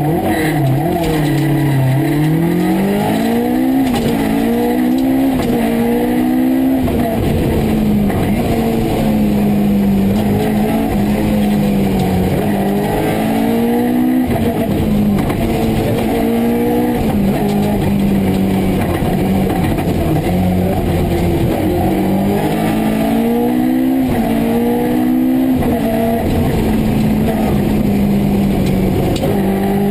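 Rally car's engine heard from inside the cabin under hard acceleration: the revs climb and drop back again and again as the driver changes gear, hold steady for several seconds about halfway through, then climb again near the end.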